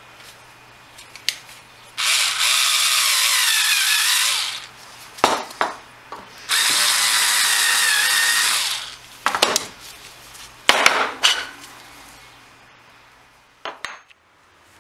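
Small cordless screwdriver spinning a deburring bit against the cut end of a 4130 chrome-moly steel tube, taking the burr off. It runs twice, about two and a half seconds each time, and a few short clicks and knocks follow.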